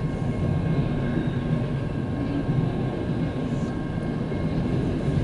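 Freight train of autorack cars rolling past, a steady low rumble heard from inside a car with its windows closed.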